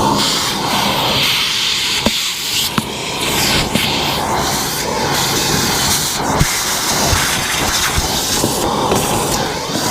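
Shop vac running steadily, its nozzle sucking dust and debris out of an RV refrigerator vent compartment, with a few sharp clicks along the way.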